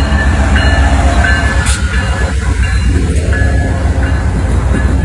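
VIA Rail diesel passenger train passing close by: the locomotive's engine hum gives way, about two seconds in, to the steady rumble of passenger cars rolling past on the rails, with a few sharp metallic ticks.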